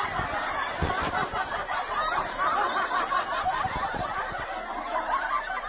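Many people laughing together, a steady overlapping wash of chuckles and snickers, with a soft knock about a second in.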